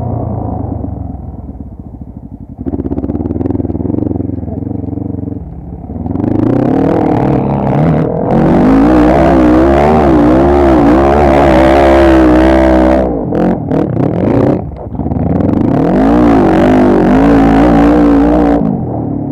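ATV (quad bike) engine revving hard, its pitch rising and falling as the throttle is worked. It is lighter for the first few seconds, pulls loud from about six seconds in, lets off briefly about two-thirds through, then pulls again before easing near the end.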